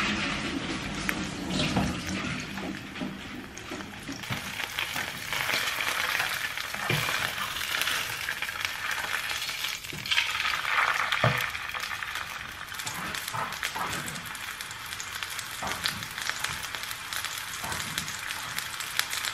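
Starch-coated pork slices frying in hot oil in a pan: a steady sizzle that swells and eases, with a few short knocks of a utensil against the pan as the meat is moved.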